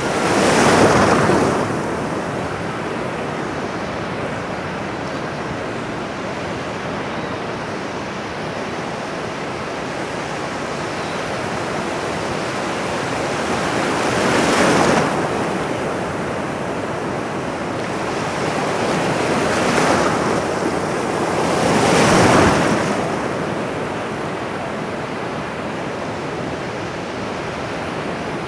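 Sea surf washing steadily on a shore. A wave breaks and swells louder about a second in, again near the middle, and twice more in quick succession later on.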